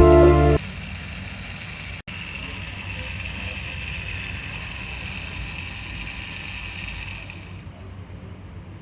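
Small electric motor of a battery-operated toy appliance running steadily, a whirring with a faint high tone. It stops about three-quarters of the way through, leaving a fainter noise.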